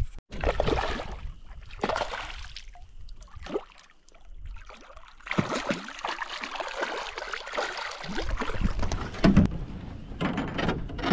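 Water splashing and sloshing in irregular bursts beside a canoe as a large hooked brook trout thrashes at the surface.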